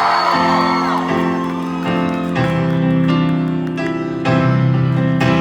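A live rock band plays sustained chords that change every second or so. Crowd whoops and cheers fade out within the first second.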